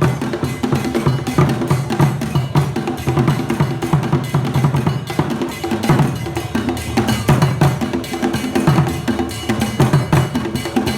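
Kete drum ensemble playing a fast, dense interlocking drum rhythm, with deep pitched drum strokes that now and then slide down in pitch.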